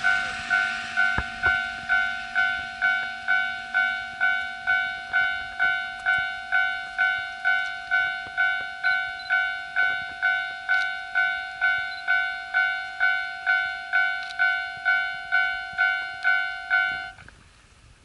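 Japanese railway level-crossing warning bell ringing its electronic two-tone 'kan-kan' strokes, a little under two a second. Near the end it cuts off suddenly as the crossing clears behind the departing train. The last of the passing steam train's noise fades out at the start.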